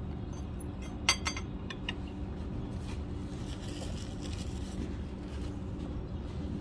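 Tableware clinking a few times about a second in, over a steady low background hum of a restaurant dining room.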